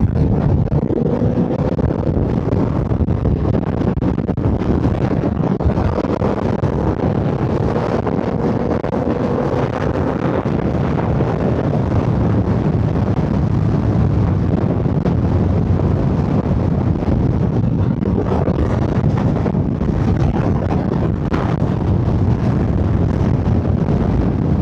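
Triumph Rocket 3 R Storm's 2.5-litre inline-three engine running hard at speed with a steady rush of wind, the engine pitch climbing a little in the first several seconds as the bike is opened up to pass traffic.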